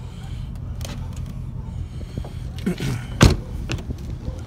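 A vehicle's back door handle and latch being tried: small clicks and then one sharp metallic clack about three seconds in, over a low steady rumble.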